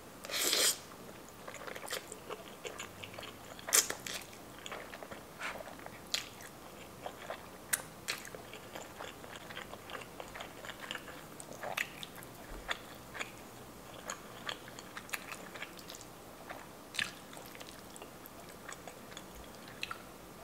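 Close-miked eating: a loud slurp of spaghetti noodles just after the start, then chewing of spaghetti and hamburger steak, with many small wet mouth clicks and smacks.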